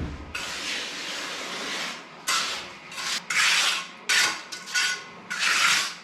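A trowel scraping and spreading wet concrete: one long stroke, then a series of shorter, quicker scrapes.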